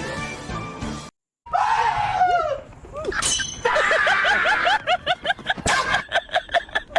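Edited-in comic sound effects: background music cuts off about a second in. After a moment of silence come screeching, sliding squeals and a crash-like burst, then a rapid string of short squeaky blips, about five a second.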